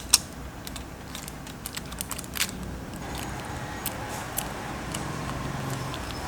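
Scattered light clicks and taps of small tools handling a phone on a repair bench, over a steady hum that gets a little louder about three seconds in.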